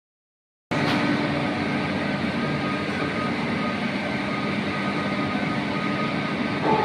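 A machine running steadily, a constant mechanical hum with a few held tones, that starts abruptly just under a second in; a new, higher tone joins near the end.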